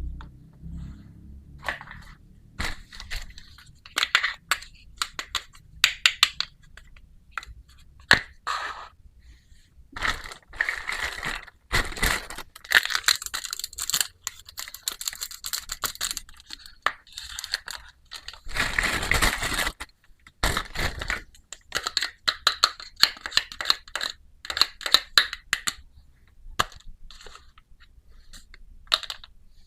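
Small plastic toy pieces and their packaging being handled: irregular crinkling and tearing of plastic wrap with sharp plastic clicks and taps.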